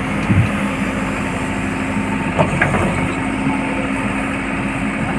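Heavy diesel engine running steadily with an even drone, with a couple of brief sharp knocks over it.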